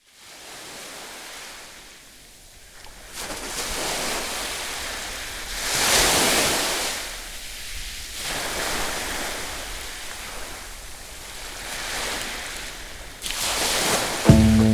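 Surf from a typhoon swell breaking and washing up the beach, the noise building and falling away in several surges, the biggest about six seconds in. Music comes in just at the end.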